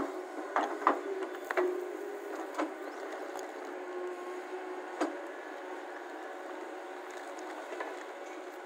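Hyundai crawler excavator's diesel engine running steadily while the bucket digs into a rocky dirt pile. Sharp knocks and cracks come from stones and soil against the bucket: several in the first couple of seconds, and one more about five seconds in.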